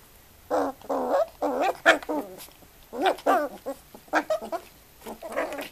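Two young puppies play-fighting and yelping: a string of short, pitched cries in quick bursts, starting about half a second in.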